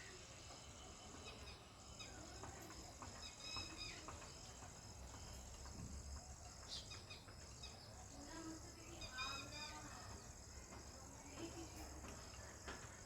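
House sparrows chirping faintly in scattered short chirps, with a quick run of calls about nine seconds in, over a steady high hiss.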